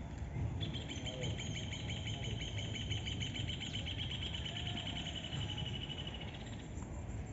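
A bird singing one long, rapid trill of evenly spaced high notes. It starts about half a second in, lasts about six seconds and sinks slightly in pitch near the end, over a low steady background rumble.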